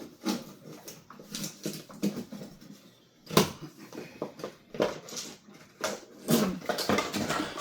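Rustling and knocking of packaging being handled and dug through, with one sharp knock about three and a half seconds in and a short pitched hum or whine near the end.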